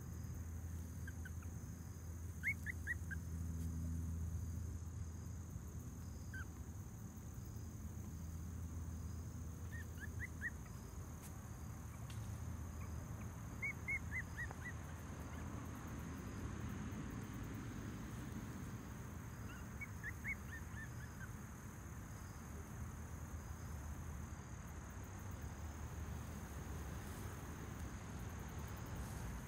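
Yard ambience: a steady high drone of insects over a low hum. Every few seconds comes a quick series of three to five short, high chirping notes.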